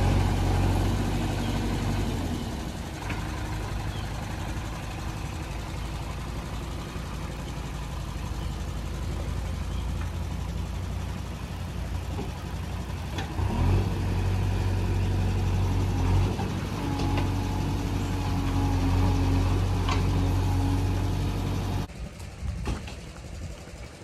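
Heavy diesel engine of a backhoe loader or tipper lorry, running. It eases off about two seconds in, revs up again past the middle and holds steady, with a few faint knocks. The sound drops away abruptly near the end.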